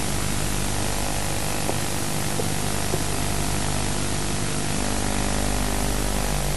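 Steady hiss with a low hum underneath and a few faint ticks.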